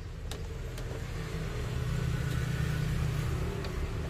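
Low rumble of a passing motor vehicle, swelling over the first couple of seconds and then easing slightly, with a few light clicks.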